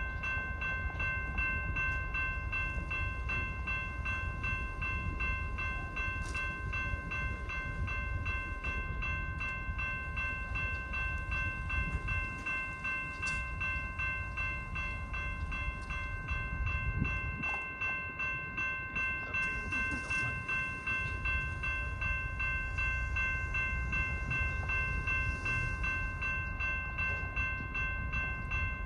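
Railroad grade-crossing warning bell ringing continuously in rapid, evenly spaced dings, over a low rumble.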